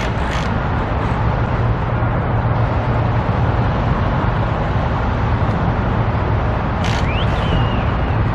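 Steady rumble of road traffic along the street, with a short high chirp near the end.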